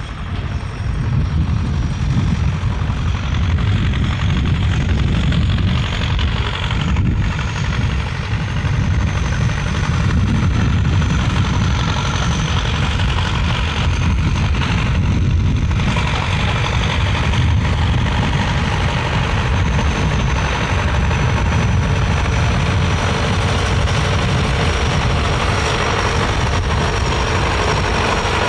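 Zetor 7745 Turbo tractor's turbocharged diesel engine running steadily, growing louder over the first couple of seconds as the tractor comes closer. A thin, steady high whine rides above the engine.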